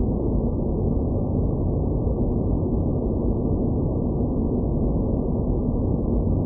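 Space planet ambience sound effect: a steady, low, muffled noise with nothing bright in it, and faint steady hum tones underneath.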